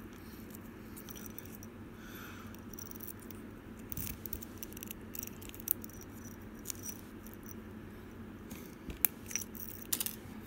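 Handling noise: scattered small clicks and light jingles of a metal ball chain and tags, with a thin plastic bag being handled, over a low steady hum.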